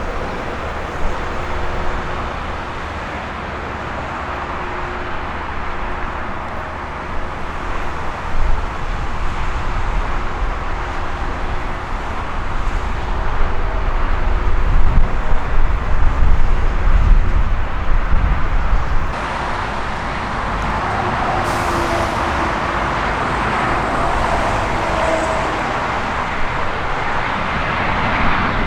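Jet airliner engine noise: a deep rumble that builds to its loudest a little over halfway through, then, after an abrupt change, a brighter hiss with a faint steady whine.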